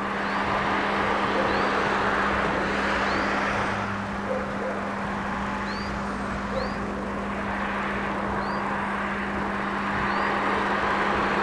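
Distant steam locomotive working a train, heard as a continuous rushing sound that swells and eases slowly, with a steady low hum underneath. A few short, high, rising chirps come and go.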